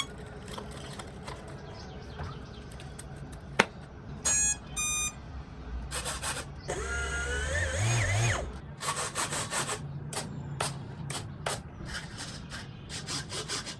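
Two short electronic beeps, then a small electric motor whining and rising in pitch for about a second and a half, followed by a run of short clicks and knocks.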